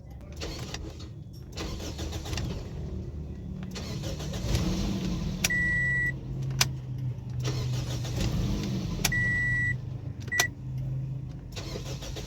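Toyota Corolla engine cranked by its starter motor, fitted with a newly replaced starter solenoid, starting and then running steadily. Three short high electronic beeps and a few sharp clicks come over the running engine.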